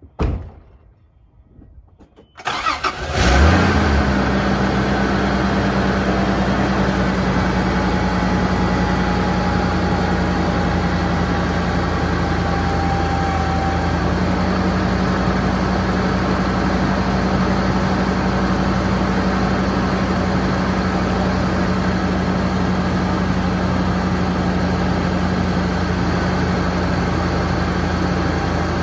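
A thump, then about two seconds in the 4.5-litre 1FZ-FE straight-six of a 1996 Toyota Land Cruiser 80 series cranks briefly, catches and settles into a steady idle.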